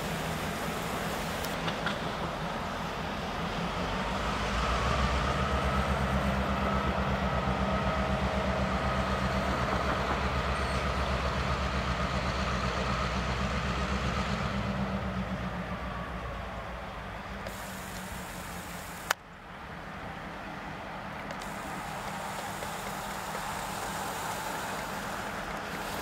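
Diesel freight locomotive's engine running as it draws closer, growing louder a few seconds in and then fading as it passes. A sharp click about two-thirds of the way through, after which only a weaker steady outdoor noise remains.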